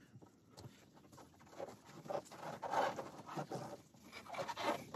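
Faint, irregular rubbing and scratching as gloved fingers work a greased rubber trunk lock seal around the lock cylinder and over the edge of the trunk sheet metal.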